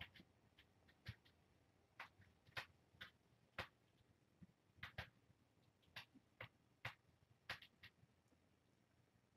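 Near silence broken by faint, sharp little clicks, about a dozen at irregular intervals, from young kittens mouthing, licking and pawing at close range.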